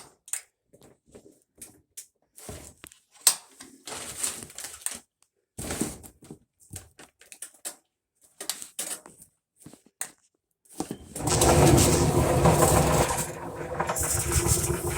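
Scattered clicks and knocks of parts being handled, then about eleven seconds in the Whirlpool dryer starts running: a loud, steady rumble and grinding from the turning drum, whose support rollers are worn down to the metal.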